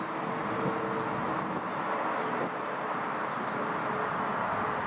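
Airbus A320-family jet airliner's twin engines giving a steady rushing roar as it rolls out on the runway just after touchdown.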